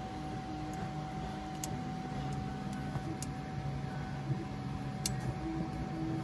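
Steady machine hum with a constant mid-pitched whine, and a few faint light ticks about every second and a half.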